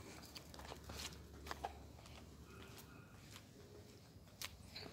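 Near silence, with a few faint scattered ticks and clicks.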